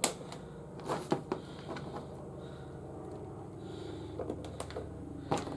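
Hard plastic toy parts clicking and knocking as pieces are handled and fitted together: a sharp click near the start, two more about a second in, and another near the end, over a low steady hum.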